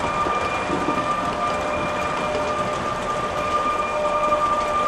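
HO scale model passenger train rolling past on the track: a steady running noise of small wheels on rails, with a steady high whine over it.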